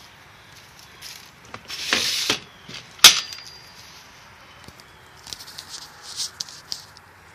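Handling rustle and knocks of someone moving about inside a small camper trailer: a short rustle about two seconds in, one sharp click about three seconds in that is the loudest sound, then a run of light clicks and taps near the end.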